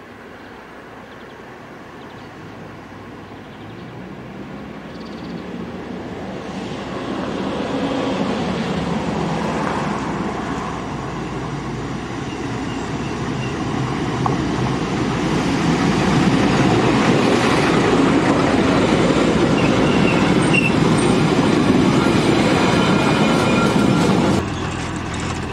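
Metre-gauge diesel locomotive and its train running past at close range. The engine and the rumble of the wheels grow louder over the first several seconds as it approaches, with a brief high wheel squeal near the end, and the sound cuts off suddenly just before the end.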